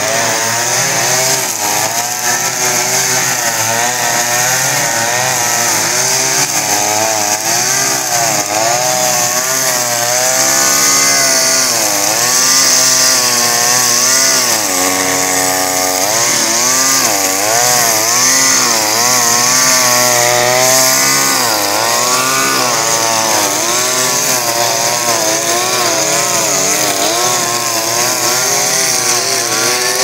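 Petrol brushcutter engine running at high revs while cutting long grass, its pitch dipping and rising again and again as the cutting head meets the grass, holding steady for a couple of seconds about halfway through.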